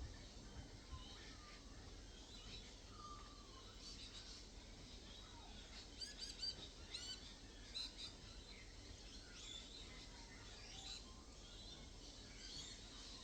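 Faint birdsong: scattered chirps and short trills from several small birds, with a quick run of repeated chirps about six to seven seconds in, over a steady low background noise.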